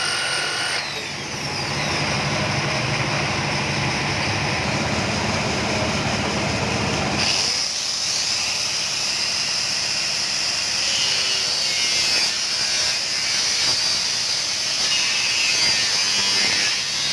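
Electric power tool running steadily; about seven seconds in its sound turns higher and thinner.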